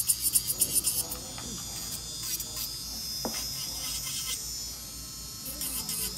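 Electric nail drill running at high speed, its bit grinding a long acrylic stiletto nail: a high-pitched whine that pulses rapidly for about the first second, then runs steadier.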